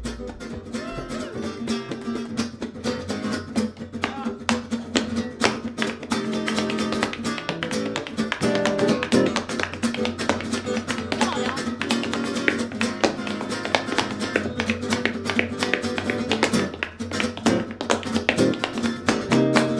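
Instrumental break from a small acoustic band: acoustic guitars strumming in a quick rhythm over a double bass, with a dense run of sharp percussive taps from tap-dancing feet on the stage.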